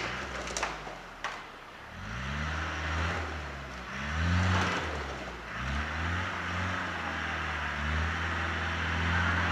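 Off-road 4x4's engine revving in a series of rising surges, then held high toward the end. A few sharp knocks come in the first second or so.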